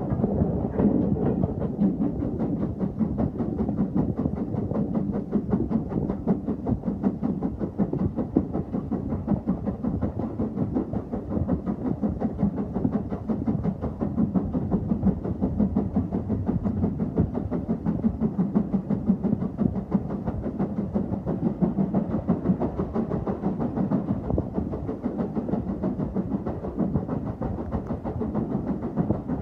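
Heritage railway train running along the line: a steady rumble with a fast, continuous rattle of wheels on the track.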